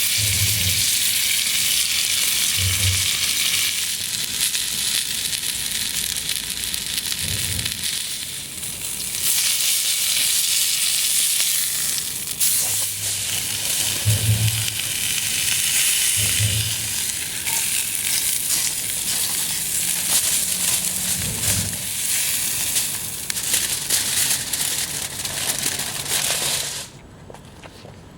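Beef searing and sizzling in a small cast iron skillet over a campfire, a steady hiss with a few dull low knocks here and there; the sizzle cuts off suddenly near the end.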